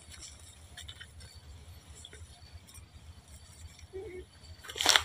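Faint rustling and crackling of dry grass and leaves as small animals scramble through it, with a short, sharper crackle just before the end.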